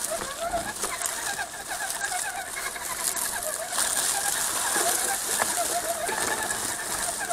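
Redcat Gen7 RC crawler's electric motor and gearing whining in short, wavering spurts as the throttle works over the trail, over a steady high hiss of tyres on dirt and gravel.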